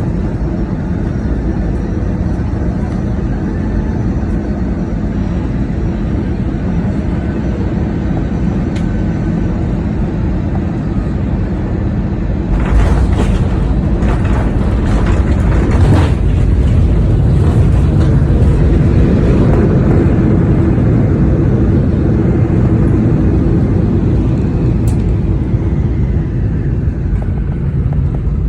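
Steady low rumble of a moving vehicle, growing louder and harsher about halfway through.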